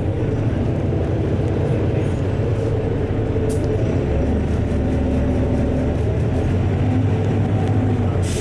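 Inside a LiAZ-4292.60 city bus on the move: the engine and drivetrain give a steady low drone, mixed with tyre and road noise, and a light click about three and a half seconds in.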